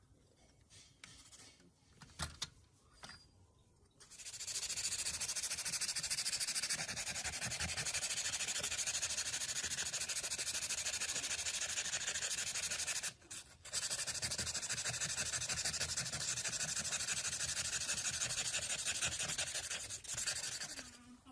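A few faint clicks, then about four seconds in a steady, rapid rubbing or sanding against a surface starts. It runs on with one brief pause near the middle.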